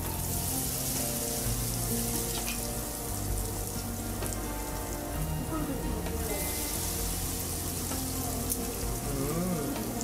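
Kakiage tempura fritters of onion and carrot sizzling as they deep-fry in a pot of hot oil. The hiss is strongest in the first few seconds, eases, then swells again about six seconds in as more batter goes into the oil.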